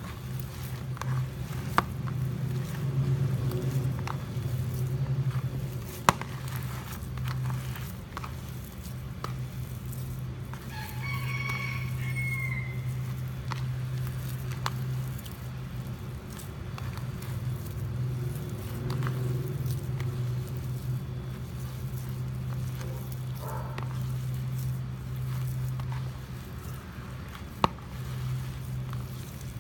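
A steady low hum throughout, with a rooster crowing once near the middle. A few sharp clicks stand out over it.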